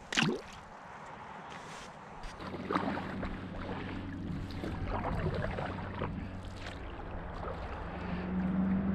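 A small yellow perch dropped back into the water lands with a short splash. A couple of seconds later the canoe is moving, with a steady low hum and light water sounds along the hull.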